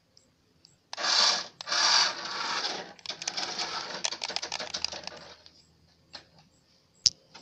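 Small toy RC car driving on rough concrete: two short rushing bursts of motor and wheel noise, then a scratchy clattering rattle of the plastic wheels that fades out. A single sharp click near the end.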